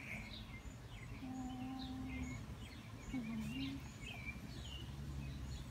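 Outdoor ambience with small birds chirping on and off, over a steady low background rumble. About a second in, a low hum is held for about a second, and a short dipping hum follows near the middle.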